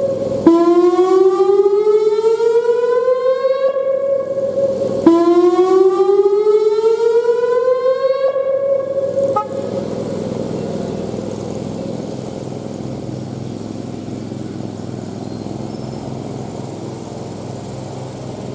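Whelen WPS-2910 electronic siren sounding its whoop tone: the end of one whoop, then two long rising sweeps of about four and a half seconds each. The tone stops about nine seconds in, leaving a steady low rushing noise.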